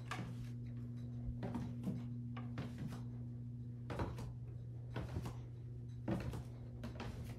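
Footsteps on a wooden floor: short knocks, often in pairs, every second or so, over a steady low hum.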